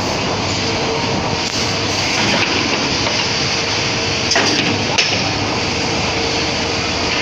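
High-speed wood-cutting machine running with a steady, loud mechanical clatter and a faint hum, with a couple of sharper knocks a little over four and five seconds in.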